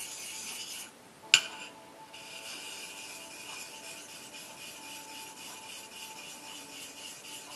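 Steel razor blade being stroked back and forth on an artificial whetstone, a steady fine rasping hiss. It pauses about a second in, with one sharp click during the pause, then carries on.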